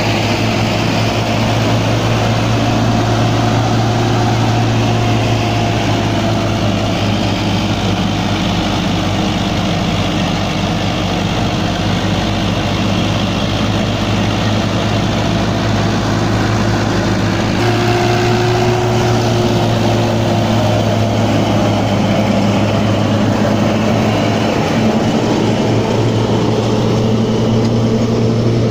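Sonalika 750 tractor's diesel engine running steadily under load while powering a North Agro straw reaper through wheat stubble, with the reaper's working noise mixed in. The engine note shifts slightly about two-thirds of the way through.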